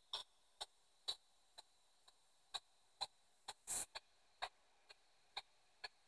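P-SB7 spirit box sweeping through radio frequencies, played through a small external speaker as faint short clicks of static, about two a second at uneven spacing, with one slightly longer burst a little past halfway.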